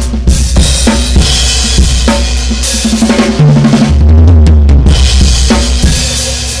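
Acoustic drum kit played in a steady groove of kick, snare and cymbal hits, heavily processed with a digital distortion effect. A deep sustained low tone runs underneath and swells louder about halfway through.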